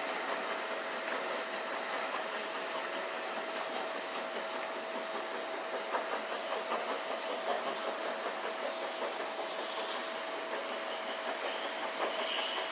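Steam-hauled train pulling away into the distance: a steady rush of running noise, with faint clicks from the wheels about halfway through.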